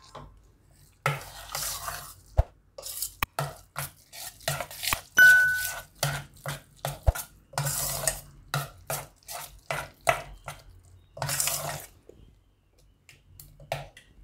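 A spoon stirring semolina, curd and water into rava idli batter in a bowl, scraping and clinking against the bowl in quick, irregular strokes, with one brief ringing clink about five seconds in.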